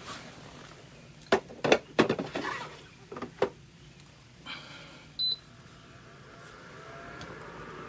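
A few clunks of the small dehumidifier being handled, then a single short beep from its control panel, after which its fan starts up and hums steadily, slowly growing louder.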